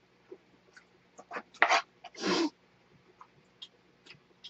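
Spoon clicking against a dish as fried rice is served, then, about two seconds in, a short breathy burst from a person's nose and mouth, like a stifled sneeze.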